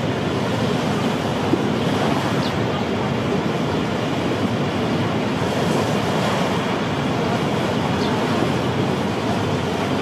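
Steady, loud rushing of a large waterfall plunging into a churning river, a continuous even roar of falling water.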